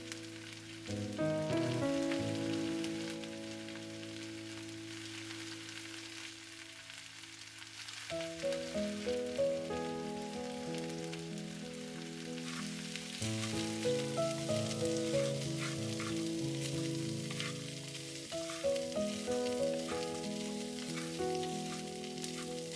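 Soft instrumental background music over the steady sizzle of split yellow peas and cauliflower frying in oil in a pan. The sizzle grows stronger in the second half.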